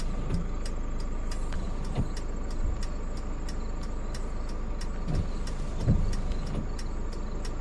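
Steady low hum inside a vehicle's cabin, with light, irregular ticks a few times a second and a faint steady tone over it; a few soft low thumps come about two, five and six seconds in.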